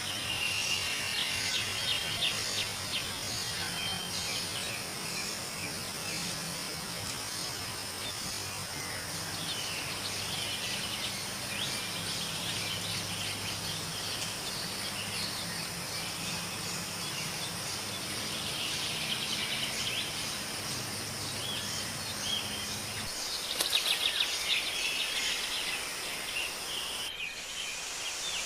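Forest ambience: a steady high insect drone with small birds chirping over it, the chirps busiest about three-quarters of the way through. A faint low hum underneath stops partway through.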